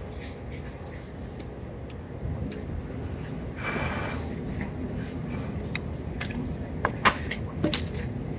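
Steady restaurant room hum with table handling sounds from a meal: a short rustle about halfway through, then a few sharp clicks of a fork and paper wrapper near the end.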